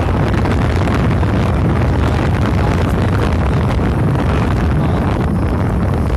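Steady, loud wind buffeting on the microphone of a moving vehicle, a dense low rumble with road noise underneath.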